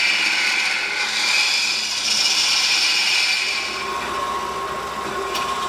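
A carbide turning tool is scraping a spinning epoxy resin sphere packed with iron filings on a wood lathe, making a steady hissing cut. About three and a half seconds in, the sound gives way to the lathe's motor hum with a steady tone, and there is a short click near the end.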